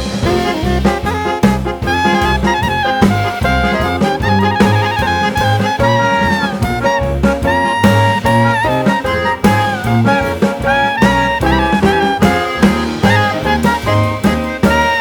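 Background music: a melody with sustained, sliding notes over a steady beat.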